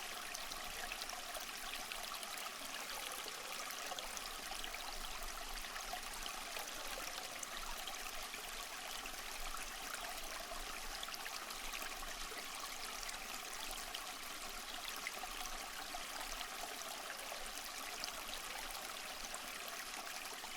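Stream of water flowing and trickling steadily, a continuous splashing hiss with fine babbling detail.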